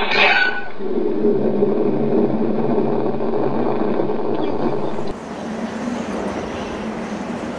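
Cartoon sound effects of a heavy excavator crashing down: a sharp crash at the start, then a steady heavy rumble that cuts off abruptly about five seconds in. A quieter steady noise follows.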